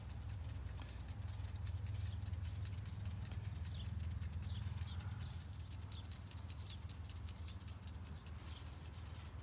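Outdoor background: a steady low rumble with fast, faint ticking and a few short, high falling chirps.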